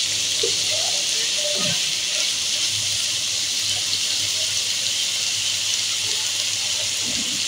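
Chicken and onions sizzling steadily in hot oil in a nonstick wok, an even high hiss. A wooden spatula stirs them briefly near the start.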